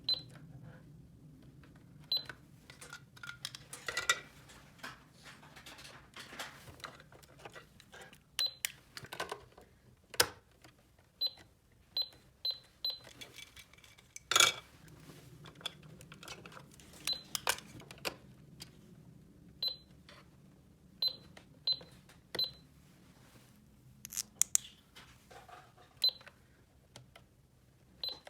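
Small plastic toy pieces being handled, with irregular clicks, taps and a few louder knocks, and short high-pitched blips in between.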